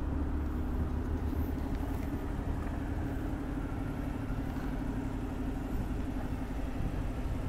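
Car engine idling steadily with an even hum.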